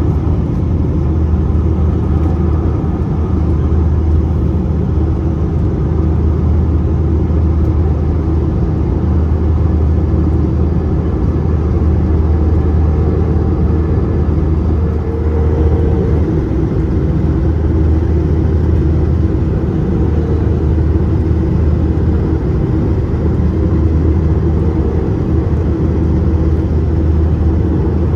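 Steady low rumble inside the cabin of an Airbus A321-231 in flight, from its IAE V2500 turbofan engines and the airflow over the airframe, with a faint steady hum over it.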